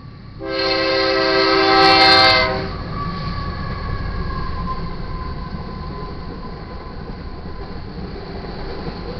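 A GE Dash 9-44CW freight locomotive's multi-chime air horn gives one loud long blast at close range, cutting off about two and a half seconds in. Then the locomotives and a manifest freight train's cars rumble steadily past on the rails.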